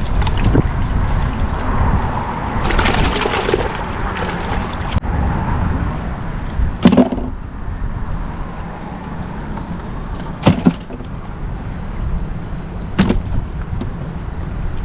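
Steady low rumble of wind and passing traffic on a road bridge, with four sharp knocks a few seconds apart.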